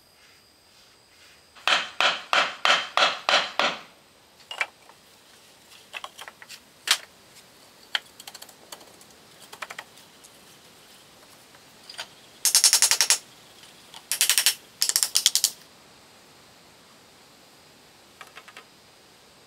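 Nail gun firing into wooden trim in runs of sharp clacks: about eight shots at roughly four a second near the start, scattered single shots, then faster bursts past the middle.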